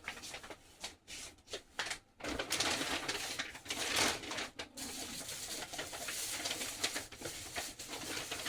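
Packaging rustling and crinkling in irregular bursts as items are rummaged out of a delivery box.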